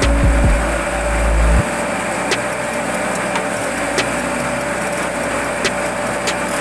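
Forage chopper running with a steady whine while leafy branches are fed in. Heavy low rumbling for the first second and a half, then sharp cracks every second or so as stems are cut.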